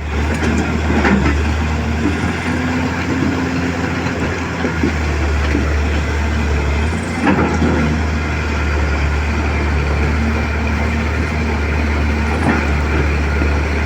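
Excavator's diesel engine running steadily under working load, with a couple of brief knocks, one about a second in and one about halfway.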